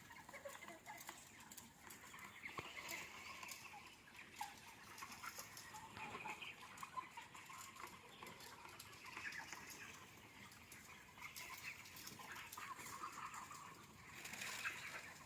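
A large flock of young chicks peeping faintly and continuously, many high cheeps overlapping.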